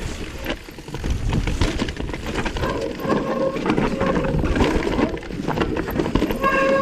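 Mountain bike rattling down a rough, rocky and rooty trail, with knocks from the bike and tyres over the ground. The disc brakes squeal in a steady high tone, strongest in the second half.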